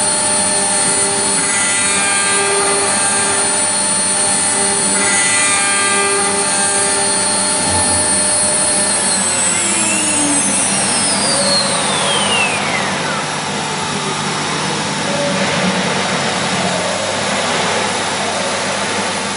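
4-axis CNC milling machine running, with several steady motor whines and a pulsing note that repeats about every second and a half. About ten seconds in, a high whine falls steadily in pitch, and the highest tone cuts off soon after.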